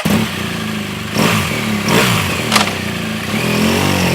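BMW R1200GS LC's boxer twin engine running, revved briefly twice about a second in and again near the two-second mark, with a sharp click midway.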